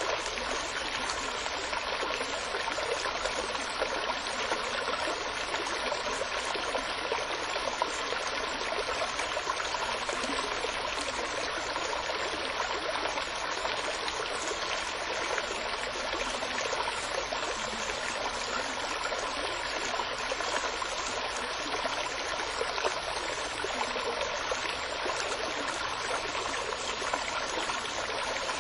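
Running water of a stream, a steady babble flecked with small splashes and trickles.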